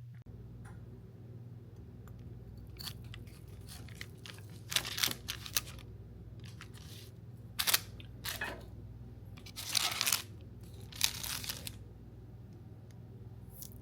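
Paper or plastic packaging crinkling and tearing in several short bursts over a steady low hum.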